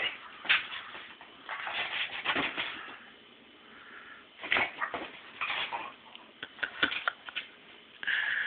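A dog playing with an ear chew treat on a carpeted floor: scattered rustles, scuffs and light knocks come in irregular bursts with quiet gaps between them.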